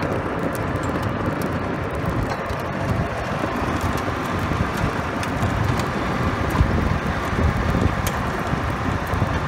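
Golf cart driving along a gravel road: a steady rumble of motor and tyres rolling on gravel, with scattered small clicks.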